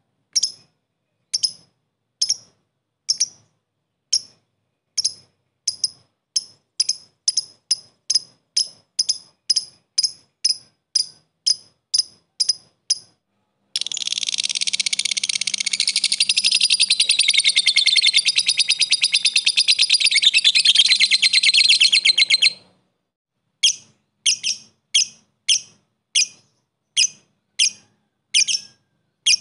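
Blue masked lovebird calling: sharp, evenly spaced chips ('ngetik') that quicken to about two or three a second. Just under halfway they give way to a long, loud, rapid chattering trill ('ngekek') lasting about nine seconds, then the chips start again.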